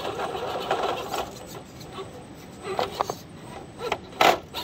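RC rock crawler on a Gspeed chassis grinding and scraping over rock as it climbs, a rasping rub at first, then a few knocks and one sharp clack near the end as it drops onto the rock.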